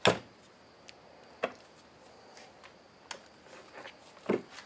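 A sharp click as the soldered wire bundle is cut free of its zip ties, then a few lighter clicks and knocks as the wire and tools are handled on the workbench.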